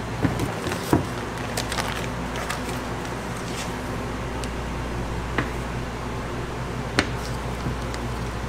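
A steady low hum of kitchen machinery, with a few sharp clicks and light knocks from a digital kitchen scale and a knife cutting into a block of butter on paper.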